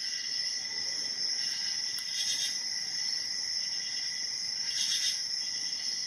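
Steady, high-pitched chirring of insects in the background, with a few faint ticks and scrapes from a hook pick working the pins of a brass padlock.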